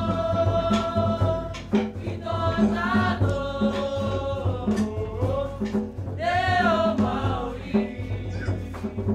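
A group of voices singing a Cook Islands song together, holding long notes, over a steady beat of Cook Islands drums that includes a wooden slit drum.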